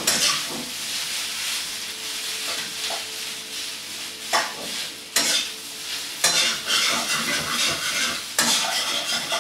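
Leftover cooked rice sizzling in a hot frying pan as a metal spatula presses and turns it, with several sharper scrapes of the spatula against the pan.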